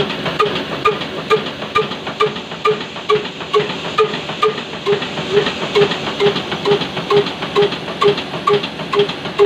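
Desi Kala oil engine, a slow-running single-cylinder horizontal diesel with heavy flywheels (billed as 22 HP at 300 RPM), running steadily. Its exhaust beats evenly about twice a second, with a hiss between the beats.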